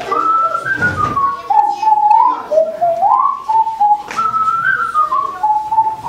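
A person whistling a tune, the melody stepping up and down with a few short upward slides.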